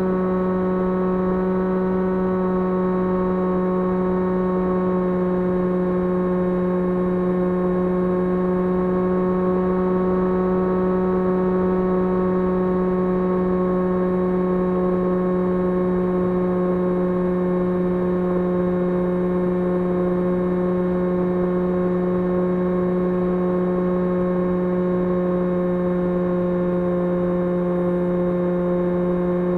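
The 2300KV brushless electric motor and propeller of an S800 FPV model plane running steadily, a constant droning whir whose pitch sags very slightly over the half minute.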